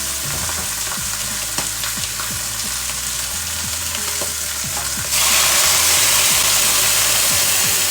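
Crucian carp sizzling in hot oil in a pan, a steady crackle of small pops. About five seconds in it jumps to a louder, even hiss as boiling water is added to the hot oil and fish.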